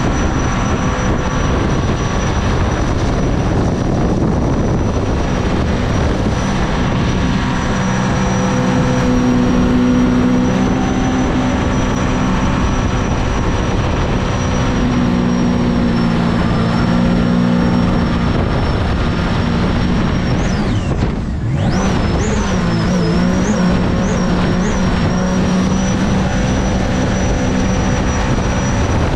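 Supercharged mini jet boat engine running hard at speed, its pitch shifting up and down. About twenty seconds in the sound briefly drops away, then picks up again.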